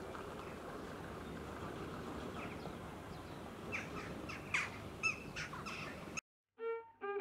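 Several short, harsh bird calls over steady outdoor background noise, about four to six seconds in. The sound then cuts off abruptly, and fiddle music starts near the end.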